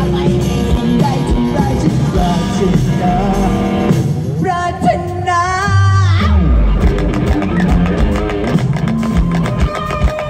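Live rock band playing loudly: electric guitar, bass and drums under a singer's voice, with a wavering, gliding high line about halfway through followed by a deep bass swell.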